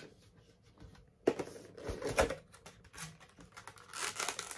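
Plastic and paper packaging of a Pokémon card collector tin being opened and handled: crinkling and tearing rustles, with a sharp click a little over a second in and a louder rustle near the end.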